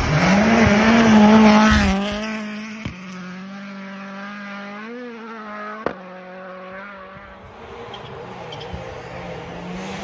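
A turbocharged four-cylinder rally car is driven flat out on a snow stage, its engine loudest in the first two seconds and then fading away. The revs rise and fall as it shifts and lifts, and there is a sharp click about six seconds in.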